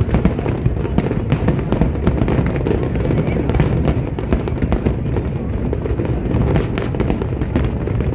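Aerial fireworks display: shells bursting and crackling without a break, a steady low rumble under many sharp cracks.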